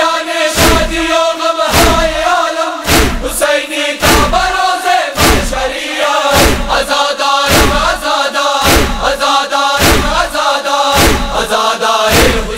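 A chorus of men chanting a noha lament in unison, kept in time by rhythmic chest-beating (matam): a sharp slap with a low thud about once a second.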